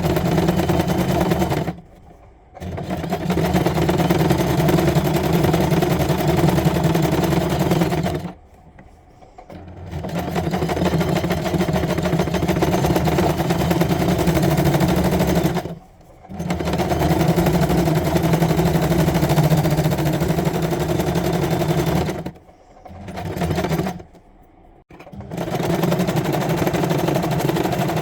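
Janome domestic electric sewing machine running steadily in spells, doing straight-stitch embroidery. It stops briefly about five times before starting up again.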